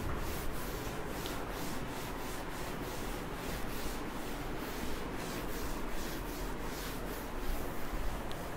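Cloth wiping chalk writing off a chalkboard in quick, repeated back-and-forth strokes.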